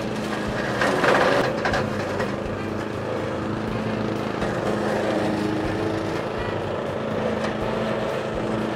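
Tekna TR 60 wheeled brush cutter's 6.5 hp petrol engine running steadily at working speed as its spinning cutting head clears brush, with a louder rush of cutting noise about a second in.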